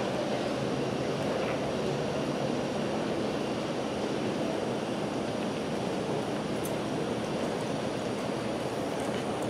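Steady rushing background noise with no distinct events or rhythm.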